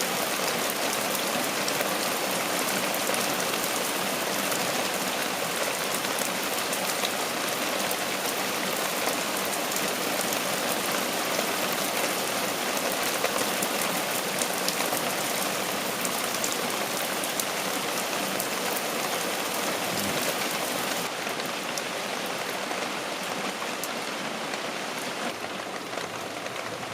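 Heavy rain falling steadily in a dense, even hiss of drops, easing slightly about three quarters of the way through.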